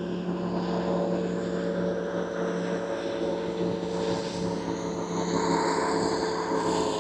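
Quadcopter drone's propellers whining steadily as it is flown back in, swelling in level about two thirds of the way through.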